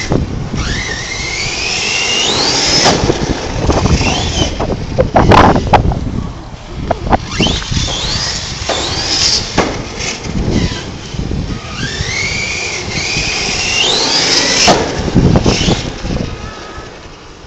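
Electric RC car running on 4S power, its motor whining as it accelerates hard three times, about a second in, about seven seconds in and about twelve seconds in, the pitch climbing steeply with speed each time.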